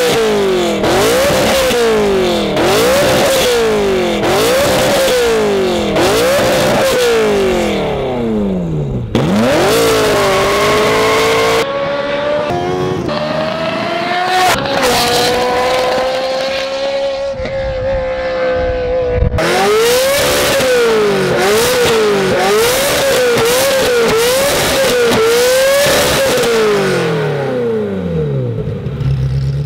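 Ferrari F355's 3.5-litre V8 revved through an Armytrix performance exhaust: a run of sharp rev blips about a second apart, a longer held rev in the middle, then a quicker run of blips near the end.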